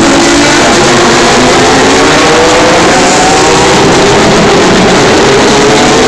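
Super GT race cars passing at speed on the straight: several engines at high revs overlap, their pitch rising and falling as they go by. Very loud.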